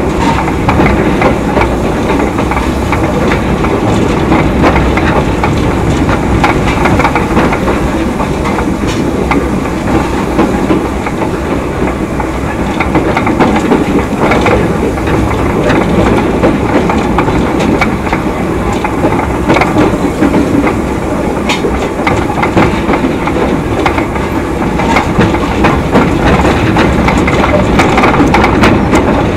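Narrow gauge steam train running along the track: a steady, loud rumble of wheels on the rails with scattered clicks from the rail joints.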